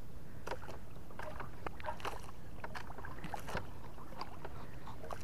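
Small wooden outrigger boat at sea: a steady low rumble with irregular splashes and knocks of water against the hull.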